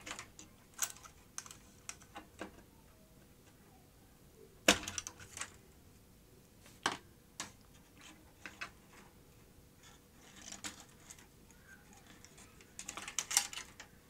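Scattered light plastic clicks and knocks as wiring connectors are unplugged from a DVD recorder's power supply board and the board is worked loose, with one sharper knock about five seconds in and a quick run of clicks near the end.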